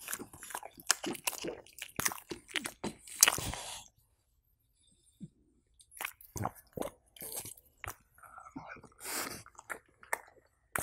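A French bulldog chewing pumpkin cheesecake taken from a spoon, close to the microphone, as a quick run of biting and chewing clicks. The chewing stops for about two seconds in the middle, then starts again.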